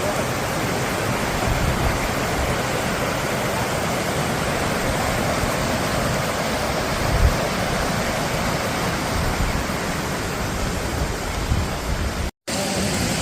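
Waterfall rushing, a steady roar of falling water, with the sound cutting out for a split second near the end.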